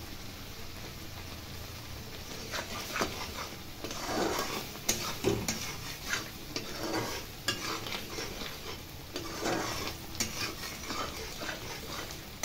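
Metal spatula stirring thick spinach purée in a metal kadai, scraping and clicking against the pan in irregular strokes from about two seconds in. A faint sizzle of the cooking purée runs underneath.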